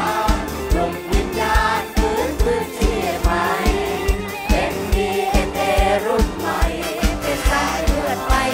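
Several singers of a mor lam troupe singing a song together over band backing, with a steady kick drum beat about twice a second.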